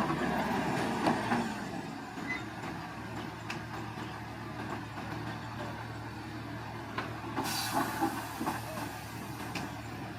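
Shantui crawler bulldozer's diesel engine running steadily, with scattered metallic clanks. A short hiss comes about seven and a half seconds in.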